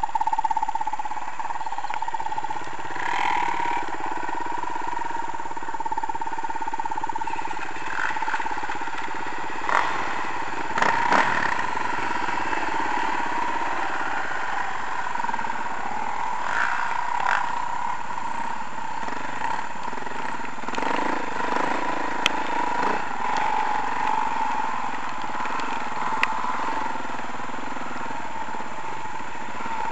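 Dirt bike engine running steadily under way on a muddy trail, its note rising and falling a little, with a few sharp knocks partway through.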